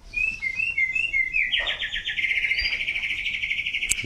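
Caged songbird singing: a few short, separate chirps, then from about a second and a half in a fast, unbroken trill.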